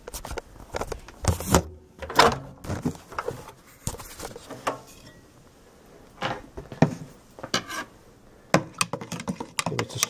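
Irregular clicks and knocks of handling as a plastic beaker of heated water is taken out of a microwave oven, set down on a bench and a thermometer probe dipped into it, with a brief rush of noise about a second and a half in.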